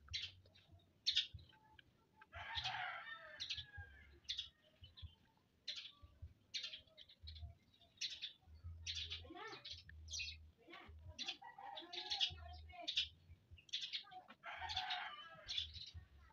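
Close mouth sounds of someone eating rambutan: a run of sharp lip smacks, sucking and clicks as the flesh is worked off the seed, with two longer, noisier sounds about 3 and 15 seconds in.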